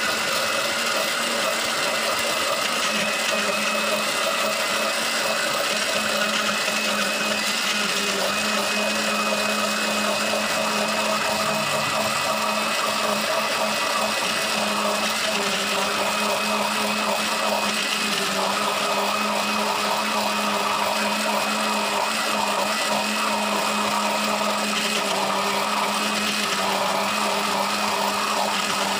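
Turbo EHM 899 electric blender with a plastic jar running steadily, blending guava pieces into juice.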